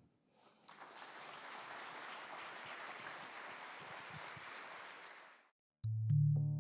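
Audience applauding, swelling in over the first second and fading out after about five seconds. Loud electronic synthesizer music cuts in suddenly near the end.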